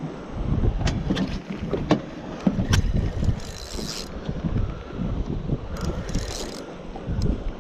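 Wind buffeting the microphone while a spinning reel is cranked against a hooked fish, with scattered sharp clicks and two short high hissing bursts, about three and a half and six seconds in.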